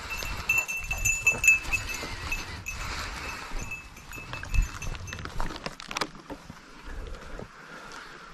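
A hunting dog's collar bell tinkling irregularly as the pointer works the brush, clearest for the first few seconds and then fading, over rustling and a few knocks.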